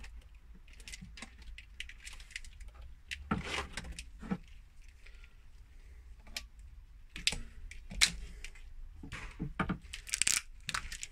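Corrugated plastic split conduit being handled, making irregular rustles and clicks, with a sharper click about eight seconds in.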